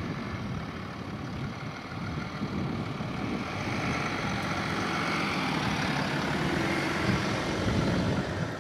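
BMW 730d (F01) with its 3.0-litre straight-six diesel driving slowly up to and past the listener: engine and tyre noise growing louder over several seconds, loudest just before it passes, then dropping away at the very end.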